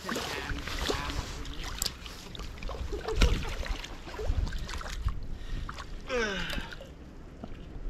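Steady rush of creek water, with a few small clicks and two dull knocks about three and four seconds in.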